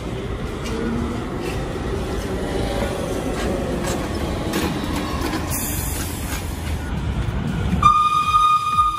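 Vehicles passing in the street, a continuous low rumble of motors and tyres. About eight seconds in, a light-rail train sounds one steady horn note for just over a second, which dips in pitch as it ends.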